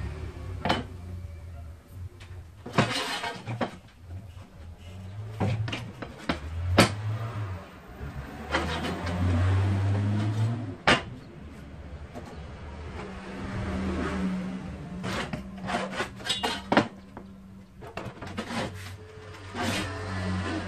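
Pencil and ruler scraping and tapping on a wooden table top as a cut line is marked out, with scattered sharp clicks, over a low engine hum that swells and fades several times.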